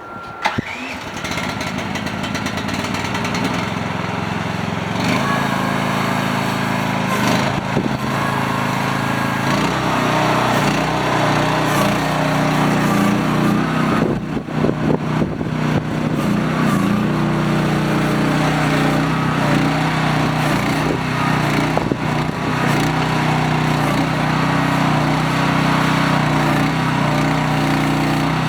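Small diesel engine of a MIVA VA13 mini excavator starting up at the very beginning, then running steadily. Its pitch shifts a few times, and there is a stretch of knocks and rattles around the middle.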